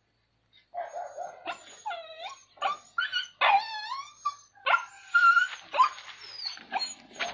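Dog yelping and whining in a quick, irregular run of high cries that bend up and down in pitch, beginning about a second in.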